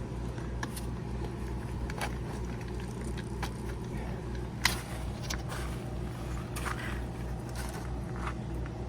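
Steady low mechanical hum with a pulsing beat, over which come scattered small clicks and crinkles as plumbing tape is handled, with one sharper click about halfway through.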